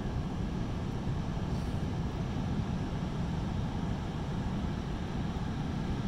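Pacific Ocean surf breaking offshore, a steady low rumble of waves.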